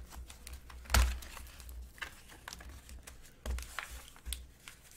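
Hard plastic GSA coin holder being handled and worked out of its snug presentation box: scattered clicks, scrapes and knocks of plastic against the box, the loudest about a second in.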